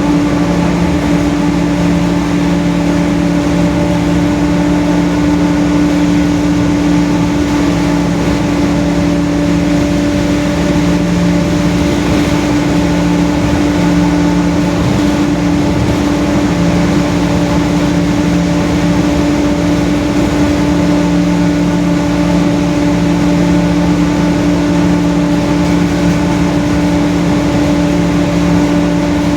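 Rear differential of a Mercedes-Benz OF-1721 city bus droning very loud, a steady whine holding one pitch, over engine and road noise.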